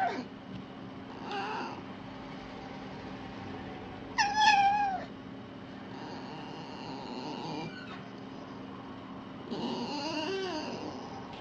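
Fox calling: a series of drawn-out, wavering cries with gliding pitch, four calls separated by pauses, the loudest about four seconds in with a falling pitch.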